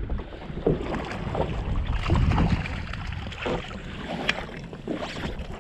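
Wind buffeting the microphone in gusts over water lapping against a jet ski's hull, with a few light knocks.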